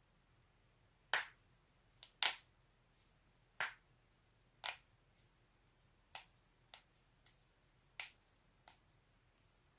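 A person's joints cracking: about ten sharp, separate pops at uneven intervals as the neck and back are twisted and stretched, the loudest just after one and two seconds in and weaker ones towards the end.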